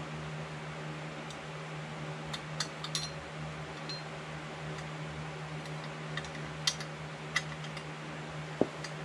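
Light metallic clicks and taps of pliers working at a chainsaw's muffler and bolts, a few sharp ticks scattered through, the loudest three in the second half. A steady low hum runs underneath.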